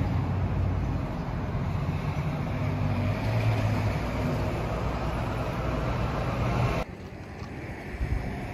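Street traffic with a steady low engine rumble from passing vehicles. It drops suddenly to quieter, more distant traffic sound near the end.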